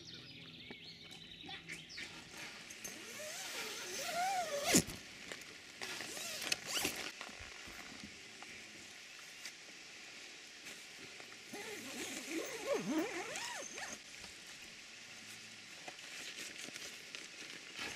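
Rain pattering on a nylon tent flysheet, with the tent's door zip pulled and the fabric rustling and creaking, in two spells.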